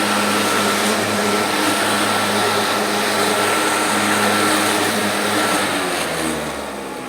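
Sun Joe electric hover lawnmower running steadily with a motor whine, then switched off about five and a half seconds in, its pitch falling as the motor and blades spin down.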